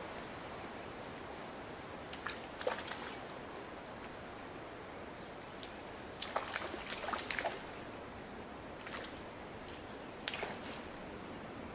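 Steady rush of a flowing trout stream, with short clusters of sharp clicks and ticks about two seconds in, between about six and seven and a half seconds (the loudest), and again around ten seconds.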